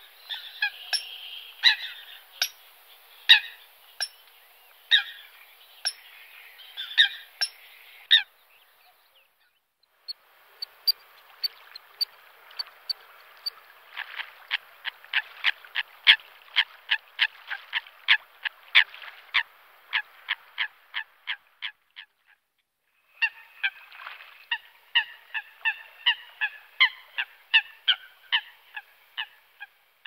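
Eurasian coots calling: runs of short, sharp, honking notes, broken by two brief pauses, with a fast, even series of about three notes a second in the middle.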